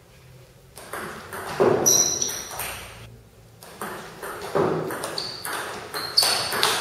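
Table tennis ball clicking back and forth between rubber bats and the table in quick rallies, each hit a sharp high 'pock'. There is a short break in play about halfway through.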